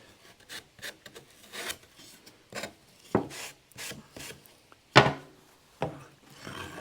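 Cut wooden shutter pieces being handled and stacked, knocking and scraping against each other in irregular clacks, loudest about three and five seconds in.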